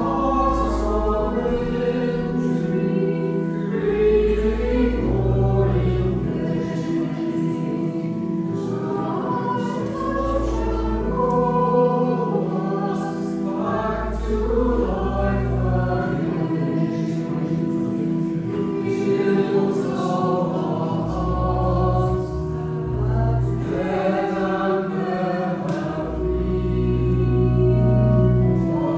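A church congregation singing a hymn together, accompanied by an organ holding long low bass notes that change every couple of seconds.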